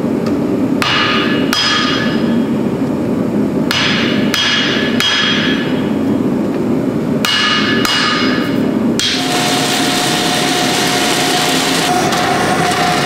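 Hand hammer striking a red-hot steel billet on an anvil: separate blows spaced about a second apart or more, each followed by a brief metallic ring, over a steady background noise. From about nine seconds in the blows stop and a steady machine hum takes over.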